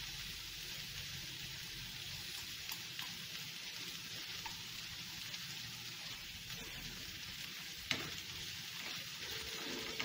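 Diced pre-boiled potatoes sizzling steadily in margarine in a frying pan while a metal spoon stirs them, with a single knock about eight seconds in.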